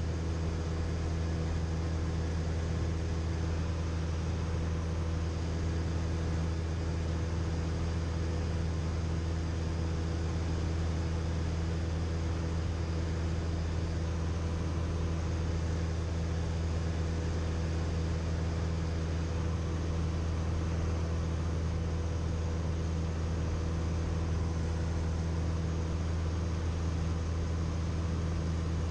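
Cessna 172M's four-cylinder Lycoming engine and propeller in flight, heard inside the cabin as a steady, unchanging drone with a low hum and wind hiss.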